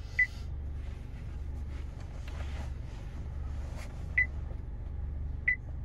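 Three short high beeps from the Honda Accord's touchscreen head unit as a song is selected, one right at the start, one about four seconds in and one near the end, over a steady low hum in the car's cabin.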